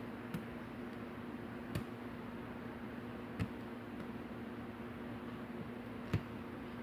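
Pin tumbler lock being single-pin picked: four short, sharp clicks of the pick and pins inside the cylinder, spread out over several seconds, over a faint steady hum.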